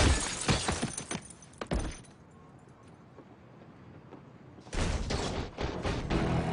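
Broken window glass clattering and tinkling onto pavement as a man's body hits the ground, with several sharp knocks in the first two seconds. Then a lull, until a louder, busier sound starts near the end and runs into music.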